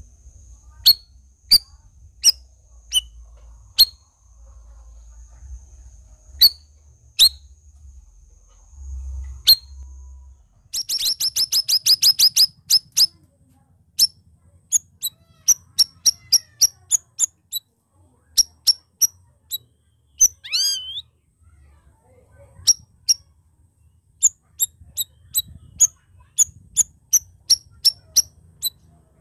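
Striated bulbul (cucak rawis) calling: a string of sharp, high single notes, a fast rattling trill about eleven seconds in, and a falling whistled note around twenty seconds.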